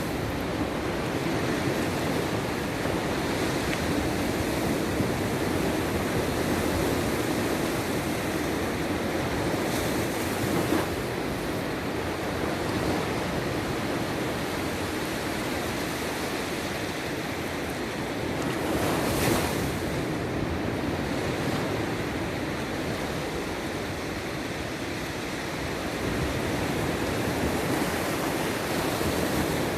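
Sea surf: waves breaking and washing continuously, with a louder hissing surge of a wave about two-thirds of the way through.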